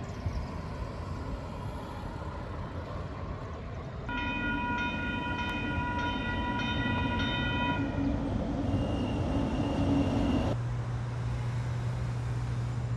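Rumbling vehicle noise. About four seconds in, a horn sounds one steady chord for about four seconds. A steady low hum starts near the end.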